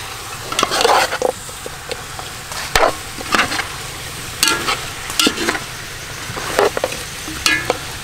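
Metal ladle stirring fish heads in a large aluminium pot, knocking and scraping against the pot at irregular intervals over a steady hiss.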